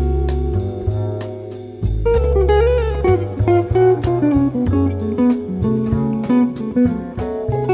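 Instrumental background music: a melody of short stepping notes over held bass notes.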